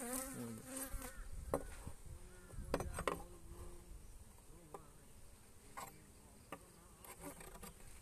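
Honeybees buzzing around the open hive, their pitch rising and falling as they fly past. A few short scrapes and knocks of a scraper on the hive box's wooden floor come through, from the floor being cleaned.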